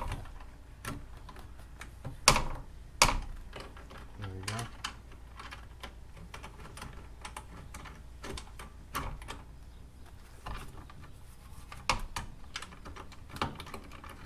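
Scattered sharp metal clicks and taps from a ratchet and wrench loosening the 14 mm bolts that hold the scooter's exhaust, with two louder knocks about two and three seconds in.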